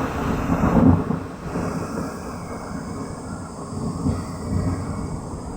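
Low rumble of a thunderstorm in hurricane-force wind, loudest at the start and dying away, with a couple of swells about four seconds in.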